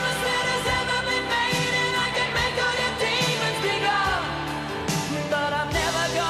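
Pop music with singing and a steady beat.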